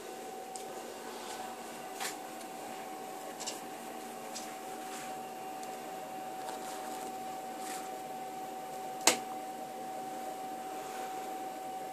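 CNC mill's stepper motors running a laser micro-cut, with a steady whine, a few light clicks, and one sharp click about nine seconds in.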